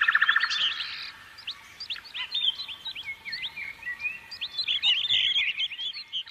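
Small birds chirping, many short rising and falling notes overlapping, with a fast buzzing trill at the start.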